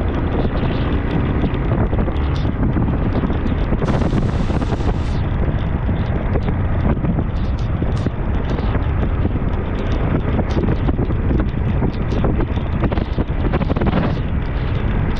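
Wind buffeting the camera microphone on a moving motorcycle, with the bike's engine and its tyres on wet paving stones underneath, a steady loud rush. A brief sharper hiss comes in about four seconds in.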